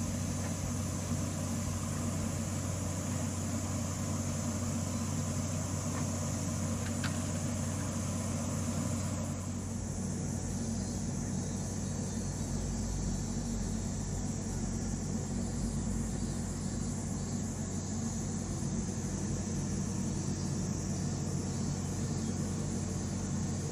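A steady low mechanical hum, a constant drone like a motor or fan running, with a hiss above it that drops away about nine seconds in.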